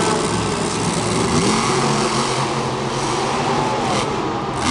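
Monster truck's supercharged V8 revving hard as it drives. Its pitch climbs about a second and a half in, then rises and falls again later.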